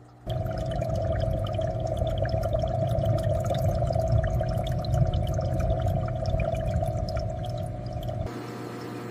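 Aquarium water bubbling, with many small drips and pops over a low rumble and a steady hum. It starts suddenly just after the beginning and drops away suddenly near the end to a quieter trickle.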